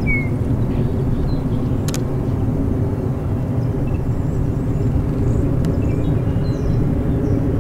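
Steady low rumble of four GE P42 diesel-electric locomotives hauling a passenger train at a distance, with faint bird chirps above it and a single sharp click about two seconds in.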